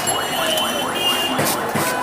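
Busy street noise with an electronic alarm-like chirp that rises in pitch and repeats about four times a second.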